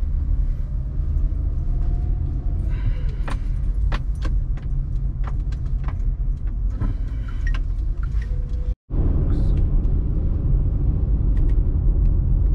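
Car running on the road, heard from inside the cabin: a steady low engine and road rumble, with a run of light clicks and rattles in the middle. The sound cuts out for an instant about two-thirds of the way through.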